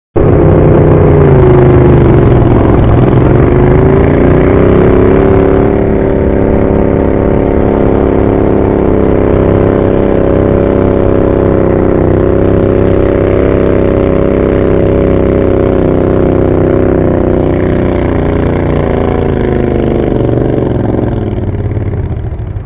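Garden pulling tractor's engine running loud at high revs under load while pulling a weight-transfer sled; the pitch sags about two seconds in, recovers and holds steady, then falls away in the last few seconds as the pull ends.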